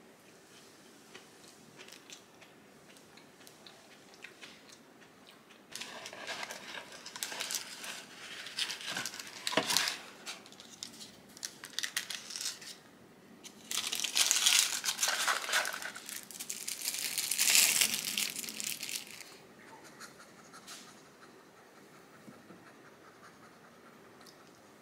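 Food wrapping crinkling and rustling as it is handled and pulled off, in two stretches of dense crackling, one starting about six seconds in and a louder one about halfway through, with low room tone between and after.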